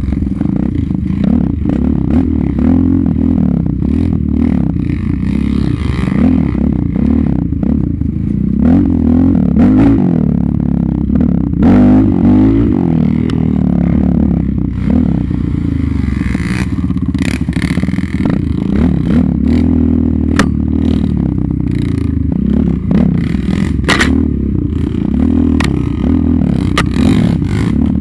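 Single-cylinder off-road engine running hard, its pitch rising and falling again and again as the throttle is worked over rough ground. Sharp knocks and scrapes come throughout, from brush and the rough trail against the machine.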